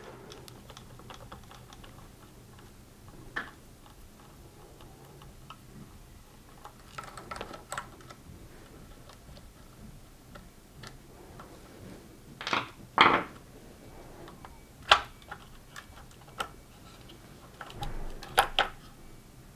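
Scattered small clicks and ticks from a Torx screwdriver turning out screws from the plastic gear assembly cover of a Gtech AirRam vacuum, with the parts handled in the hands. There are a few louder sharp clacks about two thirds of the way through and again near the end.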